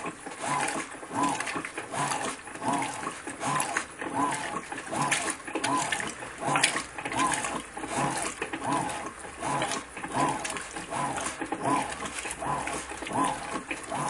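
Electrolux Ecologic 12 kg (LEC12) top-load washing machine in its wash agitation. The motor hums with a rise and fall on each back-and-forth stroke of the agitator, a little over one stroke a second, over water sloshing in the tub.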